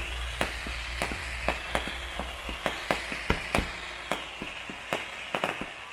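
Fireworks going off: a fast, irregular run of sharp cracks and pops over a steady hiss, several per second.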